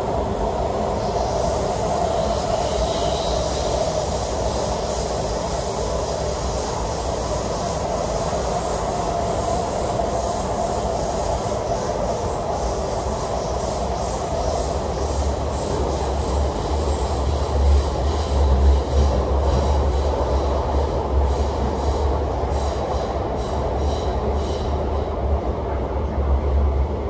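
A Kinki Sharyo–Kawasaki electric multiple-unit train of the MTR Tuen Ma Line running at speed between stations, with steady running noise throughout. A deep rumble grows louder from a little past the middle, and a run of clicks comes near the end.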